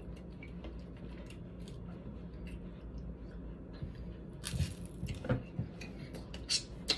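Snow crab leg shells being cracked and pulled apart by hand, with a few sharp snaps in the second half, over a low steady hum.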